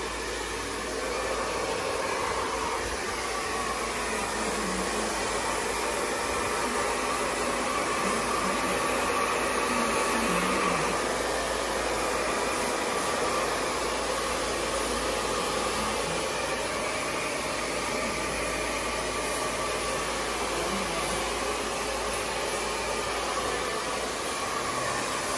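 Handheld hair dryer running steadily, blowing air onto the hair.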